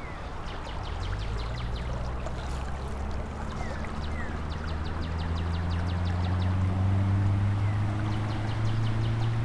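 Shallow river water running, with a motor's low drone building up from about a second in and slowly rising in pitch; faint rapid high ticking and a few short chirps sit on top.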